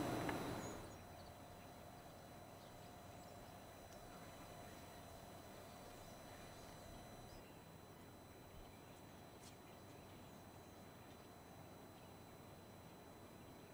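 Near silence: faint background hiss, with a faint steady tone over the first several seconds and a single faint click about nine and a half seconds in.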